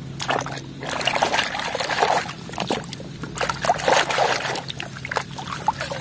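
Water splashing and trickling in a basin as a plastic toy truck is swished and rinsed by hand, with irregular splashes and drips.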